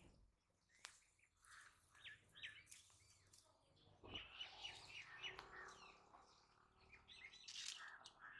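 Faint birdsong: small birds chirping in short, scattered notes, with a quick run of repeated chirps about four seconds in.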